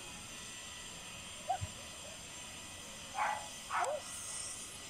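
A dog barking in short bursts: a brief one about one and a half seconds in, then two louder barks in quick succession a little after three seconds.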